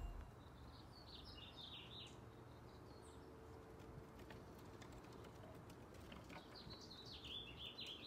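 Faint birdsong: a small songbird sings two short warbling phrases of quick chopped high notes, one near the start and one near the end, each lasting about two seconds, over quiet outdoor background.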